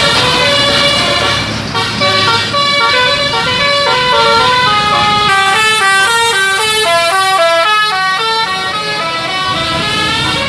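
Bus musical air horn (telolet horn) playing a tune of quick separate notes. Midway the notes step down lower, then climb back up.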